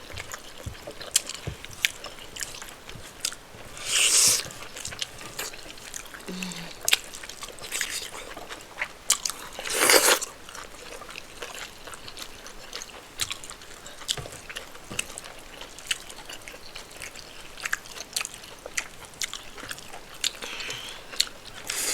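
Close-miked chewing and wet mouth sounds of someone eating rice and spinach stew with chicken: many small clicks throughout, with two louder noisy bursts about four and ten seconds in.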